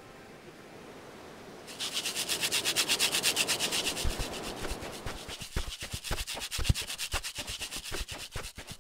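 Wooden stick spun hard against other sticks to make fire by friction: a fast rubbing at about six strokes a second, starting about two seconds in. Later the strokes grow uneven, with low knocks mixed in.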